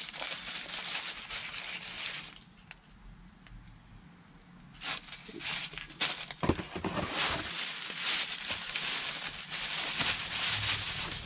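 Plastic packaging bag and bubble wrap crinkling and rustling in the hands as shower fixture parts are unwrapped. The crinkling stops for a couple of seconds about two seconds in, then resumes with some sharper crackles.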